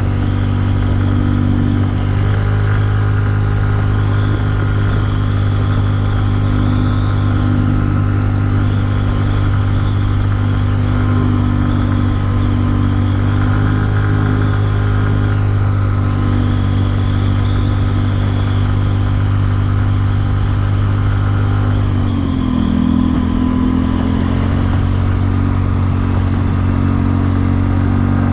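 Kymco People 250 scooter's single-cylinder four-stroke engine running steadily at cruising speed, its exhaust leaks sealed with high-heat epoxy. About three-quarters of the way through, the engine note dips briefly as the throttle eases, then climbs back up.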